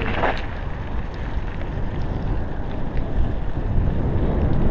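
Wind buffeting a helmet-mounted camera's microphone while riding a mountain bike, over a steady low rumble of tyres rolling on a gravel path.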